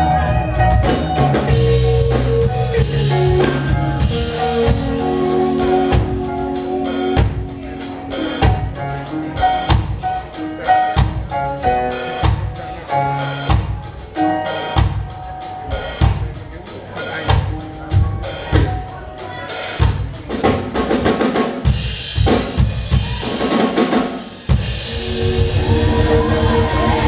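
Live band with electric guitars and a drum kit playing, the drums coming to the fore in a busy passage of rapid hits. About 24 seconds in it cuts off abruptly and a different music track takes over.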